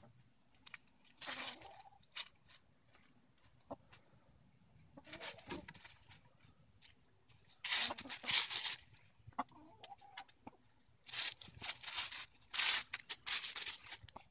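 Easter Egger hens scratching and pecking through dry leaves and grass: bursts of leaf rustling every few seconds, with clucking between them.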